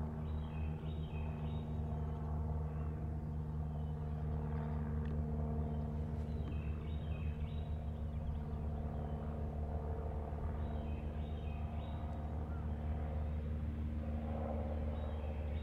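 1975 Mooney M20F's four-cylinder piston engine and propeller running steadily at low taxi power. A bird sings a short chirping phrase four times over it.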